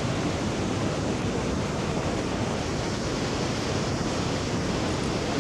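Steady, even rushing of Detian Waterfall, a 70-metre falls running at high volume with typhoon flood water.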